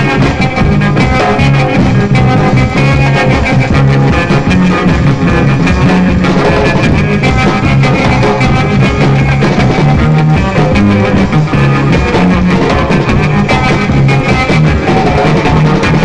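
Loud rock music with guitar and drums, with a changing bass line.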